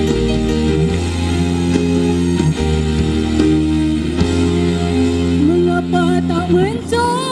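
Live dangdut band music: bass guitar, electric guitar, drum kit and kendang hand drums playing together, with a wavering melody line rising in pitch near the end.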